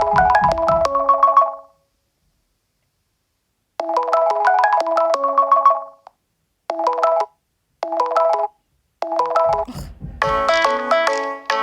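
Nokia 2.4 ringtones previewed through the phone's speaker. A short chiming melody ends, then plays again after a pause of about two seconds. Three brief snatches follow, each cut off after well under a second, and a fuller, busier tune starts near the end.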